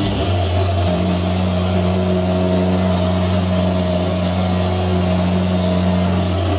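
Angle grinder mounted under a homemade spindle-sander table, switched on at the start and running at steady full speed, spinning a sanding drum with a steady motor hum and whine.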